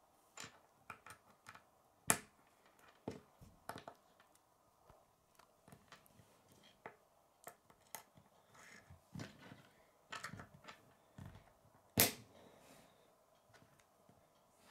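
K'nex plastic rods and connectors being handled and pressed together on a wooden tabletop: irregular small plastic clicks and taps, with two louder snaps about two seconds in and about twelve seconds in.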